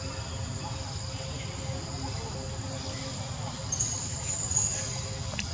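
Insects chirring steadily in several high, thin tones, with one louder high trill about four seconds in, over a low steady rumble.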